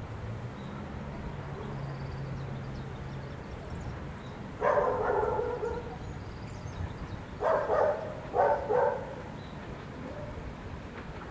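Diesel railcar's horn: one long blast about halfway through, then two short blasts a few seconds later, each a chord of steady tones.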